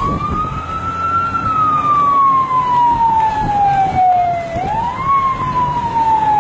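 An emergency vehicle's siren wailing. Its pitch climbs quickly, peaks about a second in, then sinks slowly, and it climbs again about four and a half seconds in. Under it is a low rumble of traffic.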